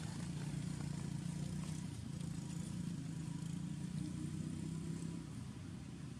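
A motor vehicle engine running off-screen, a steady low drone that drops away about five seconds in.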